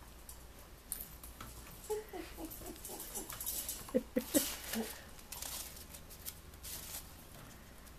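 Two rat terriers playing through a wire exercise pen: scattered light scratches, taps and rattles of paws and claws on the wire and tile floor, with a few short, faint yips about two and four seconds in.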